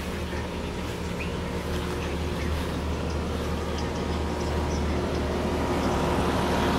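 A steady low mechanical hum with a few faint steady tones in it, growing slightly louder toward the end.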